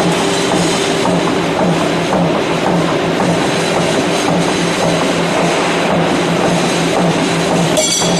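Power hammer machinery running: a loud, steady mechanical clatter over a low hum that pulses at a regular rate.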